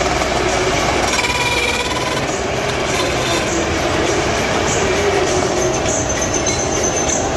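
Metal lathe running, its chuck spinning a stack of steel sprocket blanks: a loud, steady mechanical noise with a few faint high tones running through it.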